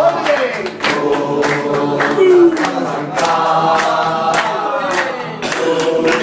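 A large group of football supporters singing a chant together, with a regular beat about twice a second.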